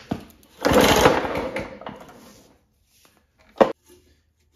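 One pull on the recoil starter of a 1957 Craftsman two-stroke mower, a heavy old rope whirring out as the engine turns over without firing, the rush fading within about two seconds. A single sharp knock follows about a second later.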